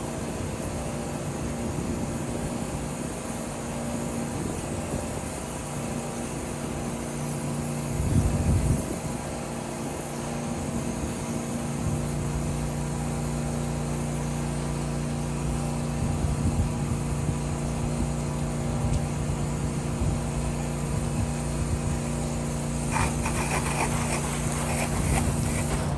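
Gas engine of a pressure washer running steadily, with a louder knock about eight seconds in; from about twelve seconds its note settles into a steadier low hum, and near the end a rapid clicking rattles over it.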